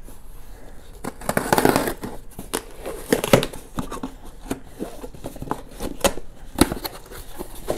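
Packaging being handled: crinkling and rustling of the box and wrapping in a couple of bursts, with several sharp clicks and knocks between.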